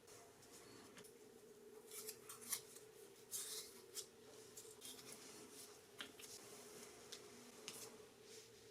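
Faint handling sounds: scattered sharp clicks and short rustles, busiest about two to four seconds in, over a faint steady hum.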